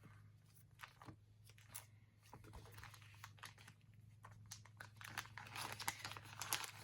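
Faint crinkling and small clicks of paper sticker sheets being handled, scattered at first and busier over the last couple of seconds, over a low steady hum.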